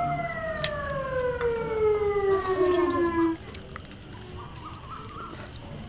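A siren winding down: its steady tone slides down in pitch over about three seconds and then cuts off. It is the sunset siren that marks iftar, the time to break the Ramadan fast.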